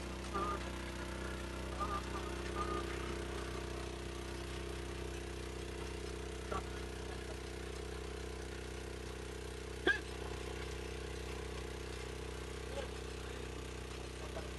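A small engine running steadily, with faint voices in the first few seconds. Two short sharp knocks stand out, the louder one about ten seconds in.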